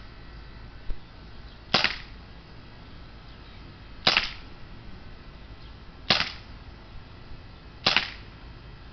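CO2-powered Colt .357 Magnum replica BB revolver firing four shots about two seconds apart, each a sharp pop.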